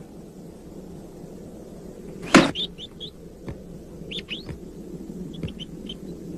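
A wooden cottage door shuts with one sharp thud about two seconds in. A few short, quick bird chirps follow over a steady low hum.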